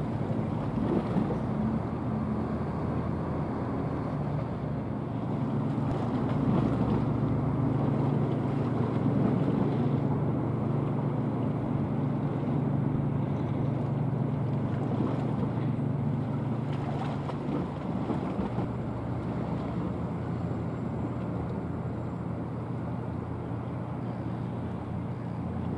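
Steady low drone of a research vessel's diesel engines carried across the water as the ship passes, over an even rush of noise. The hum weakens in the second half as the ship draws away.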